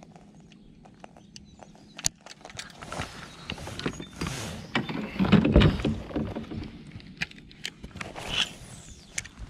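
Fishing gear being handled in a kayak: scattered clicks and knocks of a rod and baitcasting reel against the boat, with a louder rubbing rustle about five seconds in.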